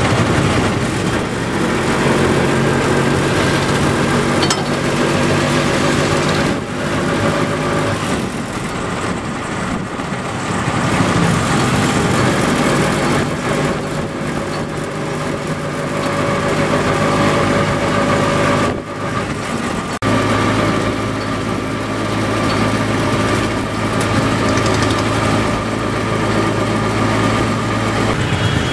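Auto-rickshaw's small engine running under way, heard from inside its open cabin, its pitch shifting up and down with speed. The sound drops out briefly twice, about a quarter and about two-thirds of the way through.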